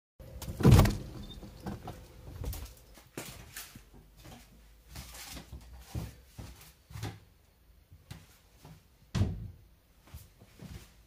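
A door closing with a loud thump about a second in, followed by scattered soft knocks and footsteps on a wooden parquet floor, with another thump near the end.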